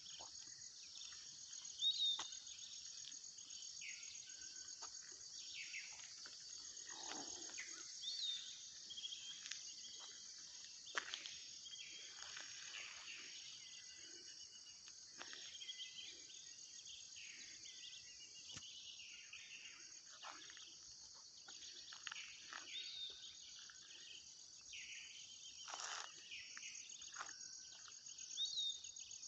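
Faint, steady chorus of insects trilling high, with scattered shorter animal calls; one short hooked call recurs several times.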